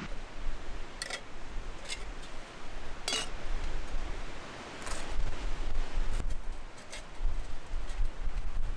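Irregular sharp clicks and clinks of small metal objects being handled, about six in all, over a low wind rumble on the microphone.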